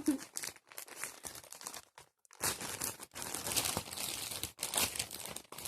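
Plastic parcel packaging crinkling and rustling as it is handled and opened, with a short break about two seconds in.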